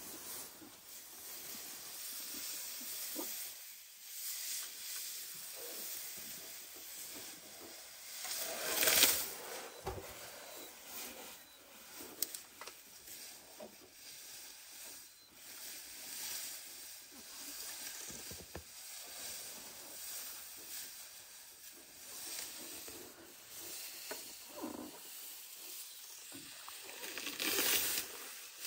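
African bull elephant feeding in tall grass, its trunk pulling and tearing up grass in a series of rustling, ripping swishes, loudest about nine seconds in and again near the end.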